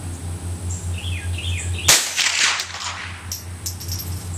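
A single shot from a Winchester Model 74 semi-automatic .22 LR rifle about two seconds in: a sharp crack with a short trailing echo. A bird chirps a few times just before the shot.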